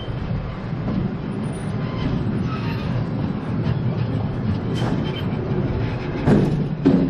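RMC wooden roller coaster train rolling along the brake run with a steady rattling rumble of wheels on track. A few louder clunks come near the end as it slows toward the station.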